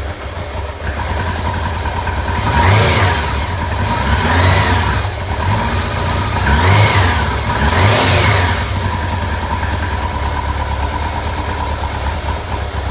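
Vehicle engine with a rough idle, revved up and back down four times in the middle, then settling back to a steady idle.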